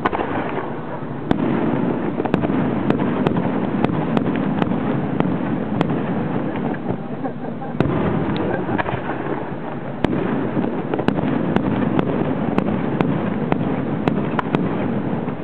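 Fireworks display: a rapid run of aerial shell bursts, sharp bangs following each other every half second to second over a continuous wash of noise.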